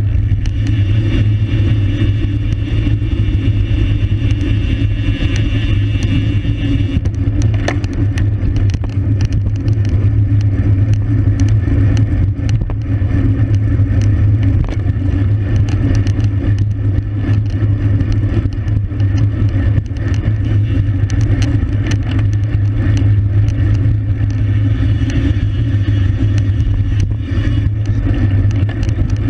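Steady low wind rumble on the microphone of a camera riding on a racing bicycle at speed, with road and tyre noise and scattered small clicks.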